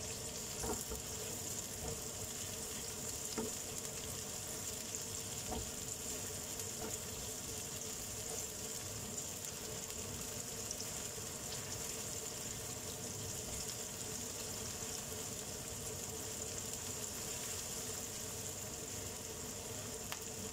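Chopped onion and ginger sizzling steadily in oil in a nonstick wok while a silicone spatula stirs them, with a few light ticks in the first several seconds.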